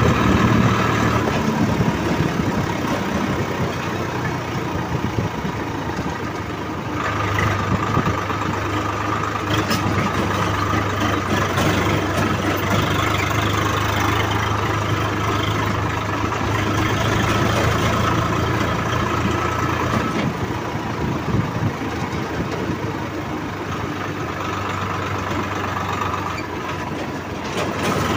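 Diesel tractor engine running steadily as the tractor drives along. The engine note steps up about seven seconds in and drops back somewhat around twenty seconds.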